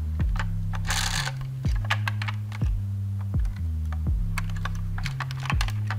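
Electronic background music with a stepping bass line and a kick drum about once a second, overlaid by irregular sharp clicks and taps of plastic toy vehicles being handled.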